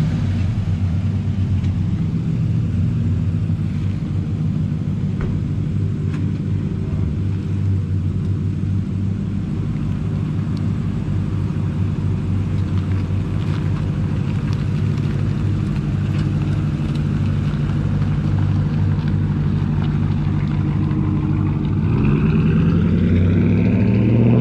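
Pickup truck engine idling steadily close by, then revving up about two seconds before the end.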